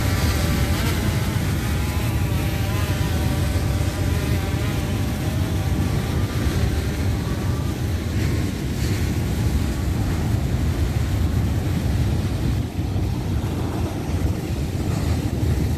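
Quadcopter drone's propeller whine, fading away over the first half as it flies out over the sea. Heavy wind rumble on the microphone and breaking surf run throughout and are the loudest sound.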